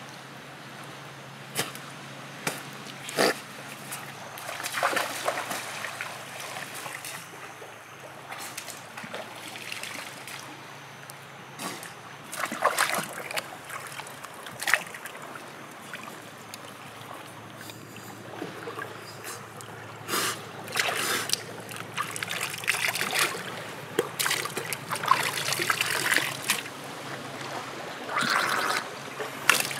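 Shallow seawater in a rock pool splashing and trickling irregularly as hands scoop and rinse in it, with a few sharp clicks in the first few seconds.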